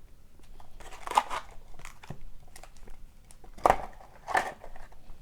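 Packaging crinkling and rustling in several short bursts, with a few sharper scrapes, as a sealed box of trading cards is opened.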